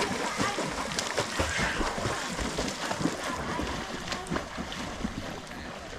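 Water splashing and sloshing where people are swimming, with scattered sharp splashes over a steady wash of noise and wind on the microphone.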